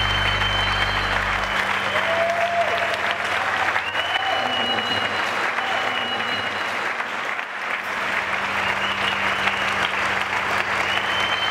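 Audience applauding and cheering. Low musical notes end about a second and a half in.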